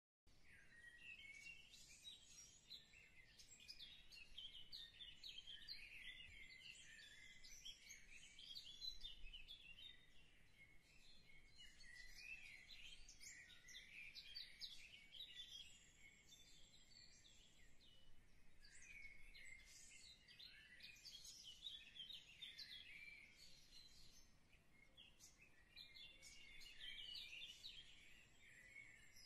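Faint chirping of many small birds, a dense run of short high calls that goes on throughout with a few brief lulls.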